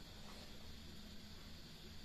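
Faint mouth sounds of someone chewing a mouthful of rice and chicken curry eaten by hand, with small soft ticks over a steady low room hum.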